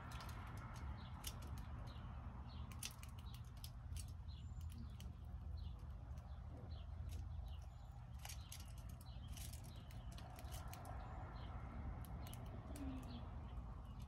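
Birds at a feeder: irregular sharp clicks and taps of pecking at seed close to the microphone, with a few faint short chirps and a steady low rumble underneath.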